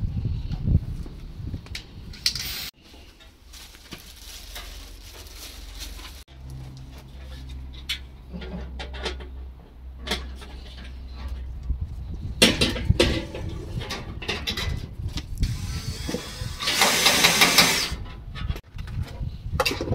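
Metal barbecue panels and parts being handled and fitted, with scattered knocks and clicks. A low steady hum runs for several seconds in the middle. A harsh rattling burst lasting about a second comes near the end.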